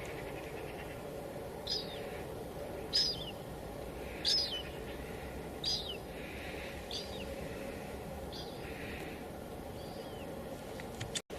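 Steady hiss of light drizzle, with a bird repeating a short, downward-sliding chirp about every second and a half. The sound drops out for an instant near the end.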